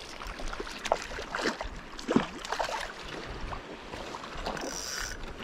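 Shallow seawater splashing and sloshing in short, irregular bursts.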